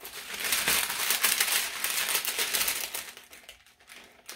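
Paper rustling and crinkling as sheets are lifted and the sublimation transfer paper is peeled off the heat-pressed glitter vinyl. It is loud and continuous for about three seconds, then thins to a few soft rustles.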